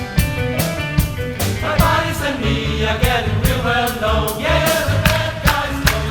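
A large mixed choir singing a 1960s pop medley over a band with a steady drum-kit beat and bass. The massed voices come in strongly about two seconds in.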